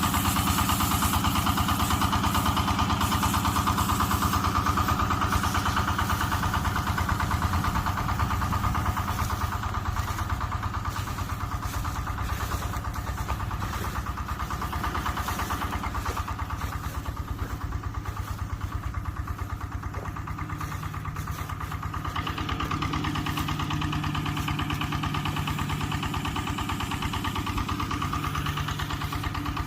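Excavator's diesel engine running steadily, with a steady whine above it; a lower hum joins about two-thirds of the way through.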